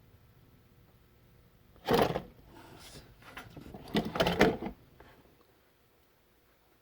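Bench handling sounds: a sharp clunk about two seconds in, then a short run of knocks and rattles around four seconds, as tools or parts are picked up and set down.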